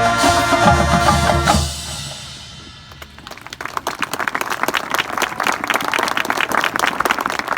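Marching band with drums finishes on a held chord that cuts off less than two seconds in and rings away; after a short lull the crowd applauds.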